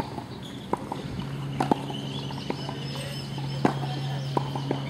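Tennis ball being struck by racket strings and bouncing on a hard court: a string of sharp pocks at irregular spacing, the loudest about 1.7 and 3.7 seconds in. A low steady hum comes in about a second in.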